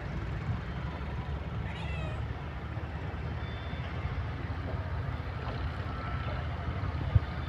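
Steady low rumble of engines and machinery at a road construction site, with one short high call falling in pitch about two seconds in, and a single sharp knock near the end.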